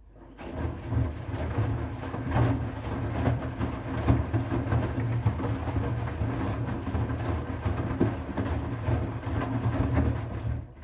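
Front-loading washing machine running a wash: the motor drives the drum while the wet laundry and water slosh inside. The sound starts suddenly about half a second in and cuts off near the end.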